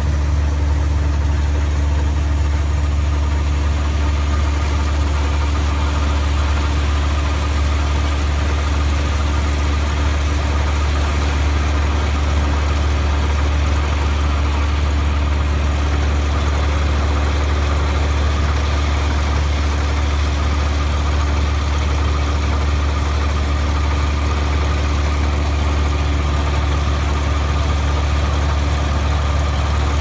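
Yanmar CA180 combine harvester's engine running at a steady speed, a constant low hum that does not change.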